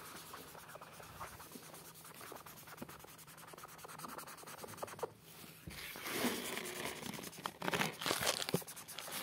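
Felt-tip marker scratching back and forth on paper while colouring in. It is faint for the first few seconds, and the strokes grow louder and quicker from about six seconds in.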